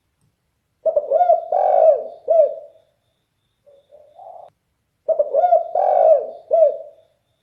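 Spotted dove (derkuku) cooing in a deep, very loud voice: two full phrases of several arching, rolling notes about four seconds apart, with a short, fainter coo between them.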